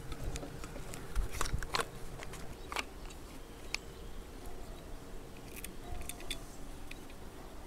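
Scattered small clicks and taps as a small tool and hands work the screw of a stick-welding electrode holder, tightening it down onto a jumper-cable wire.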